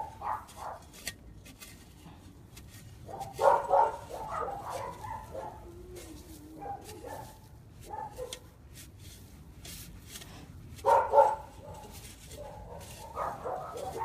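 A dog barking in bouts: a run of barks about three and a half seconds in, a single bark near eight seconds, a short loud burst about eleven seconds in, and more barks near the end.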